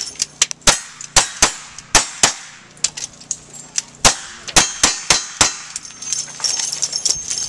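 Revolver shots at steel targets, about ten in all: a quick string of five, a pause of under two seconds, then another five. The steel targets ring with a metallic clang on the hits.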